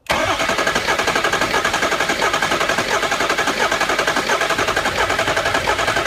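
Ford 6.0L Power Stroke V8 diesel cranking over on the starter without firing, with a fast, steady chugging rhythm. The crank does not sound right because cylinder 8 has no compression, which the mechanic suspects is a cracked piston.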